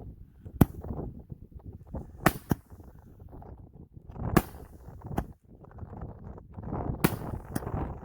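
5-inch canister firework shells going off: about seven sharp bangs at uneven intervals, the first and one about four seconds in the loudest, over a steady low rumble of wind on the microphone.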